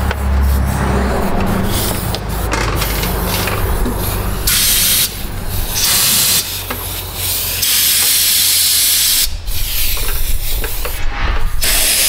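Air-fed undercoating spray gun spraying Fluid Film rust-proofing oil in several bursts of loud hiss, with short pauses between trigger pulls. The longest burst comes about eight seconds in.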